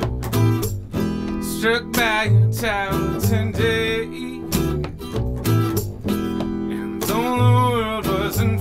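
A man singing a folk song while strumming an acoustic guitar, with strong low notes recurring under the chords.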